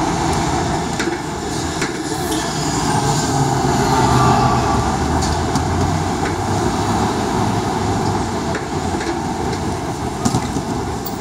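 New York subway train rumbling past beneath the sidewalk grate, together with street traffic. The rumble swells to its loudest about four seconds in, then eases off.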